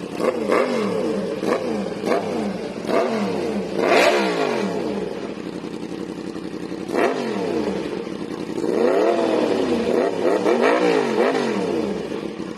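Yamaha MT-10's crossplane inline-four revving through an SC-Project aftermarket exhaust: quick throttle blips from idle, five in the first four seconds, one about seven seconds in, then several more in quick succession near the end.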